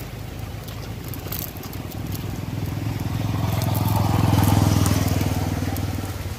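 A motor vehicle engine passing by, growing louder to a peak about four seconds in and then fading away.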